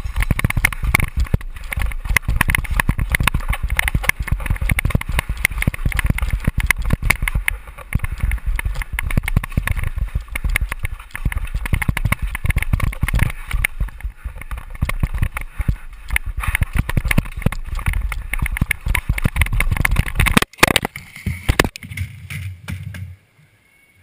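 Downhill mountain bike at speed over a rocky, rooty trail, heard from a helmet camera: a dense, unbroken rattle and rumble of the bike and tyres. About twenty seconds in, a few sharp impacts as the rider crashes. Then the noise fades to near quiet.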